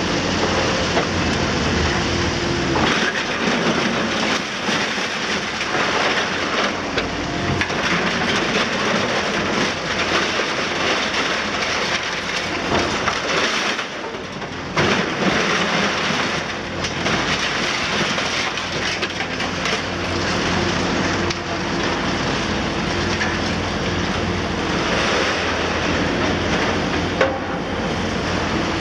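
Rubble and concrete crackling and crashing down without a break as a Liebherr R960 long-front demolition excavator tears into a building, with the machine's diesel engine humming steadily underneath. The crashing eases briefly about halfway.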